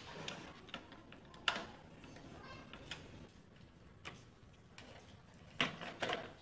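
Scattered clicks and light knocks of hand work on a wooden cabinet door: a screwdriver driving screws into a metal hinge and tools knocking on the wood. The loudest knock comes about a second and a half in, and two more come close together near the end.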